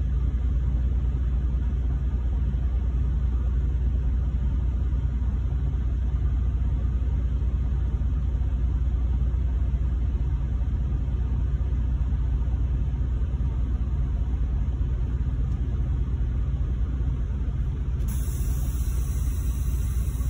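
Semi truck's diesel engine running steadily, heard from inside the cab as a continuous low rumble.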